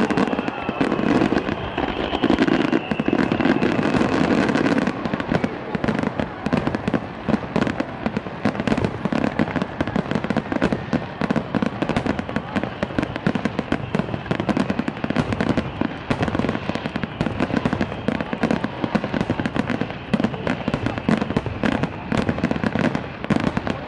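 A dense barrage of aerial firework shells bursting in rapid succession, a continuous rattle of bangs and crackle that is loudest in the first few seconds. A faint high whistle falls slowly in pitch near the start.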